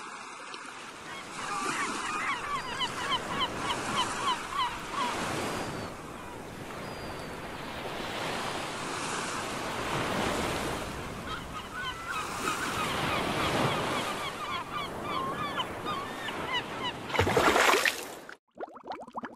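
Ocean waves washing steadily, with birds calling over and over above the surf. Near the end comes one loud rush of water lasting about a second, then the sound cuts off suddenly.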